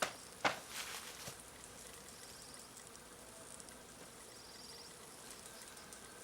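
A sharp knock about half a second in, with a few lighter clicks, as a wooden frame is worked out of a beehive box. After that there are only faint insect sounds, with two short high trills.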